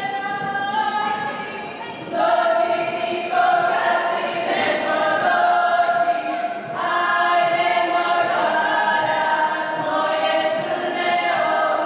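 A group of women singing a Serbian folk song unaccompanied, in long held notes. A new phrase enters about two seconds in and another just before the middle.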